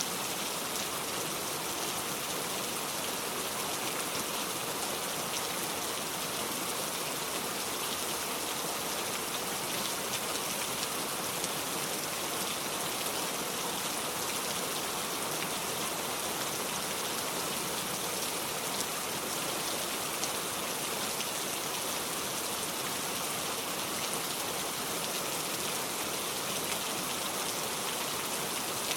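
Heavy rain falling steadily, with dense patter of drops on surfaces.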